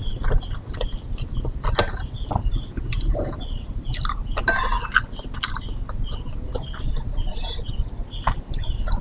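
Close-miked chewing of lontong kikil (rice cake and chewy beef skin), with many short wet mouth clicks and smacks.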